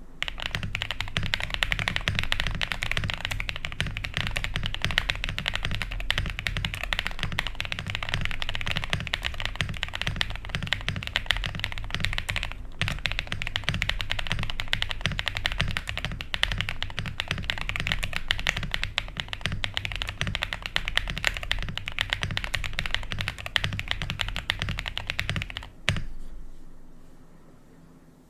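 Fast, continuous typing on a QK65 custom mechanical keyboard with a POM plate, Cobalt POM switches and PE and case foam, giving a deep, muted "thock". The typing breaks off for an instant about halfway through and ends with one heavier keystroke a couple of seconds before the end.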